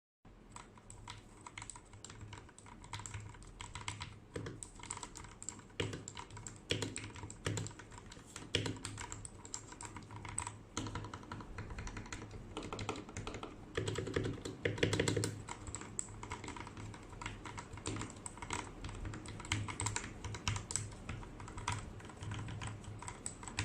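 Royal Kludge RK84 mechanical keyboard fitted with lubed Gateron Milky Yellow linear switches, typed on continuously in an irregular patter of keystrokes, with a denser flurry a little past the middle.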